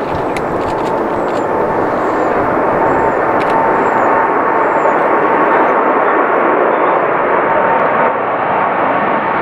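Boeing 787 Dreamliner's twin turbofan engines at takeoff thrust as it lifts off and climbs out: a loud, steady jet roar with a thin steady whine running through it.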